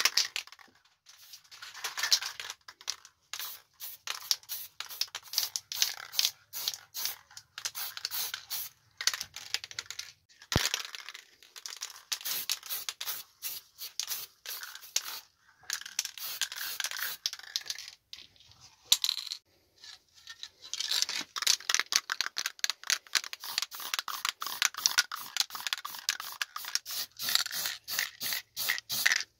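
Rapid, repeated scraping strokes by hand on a part, in runs broken by short pauses.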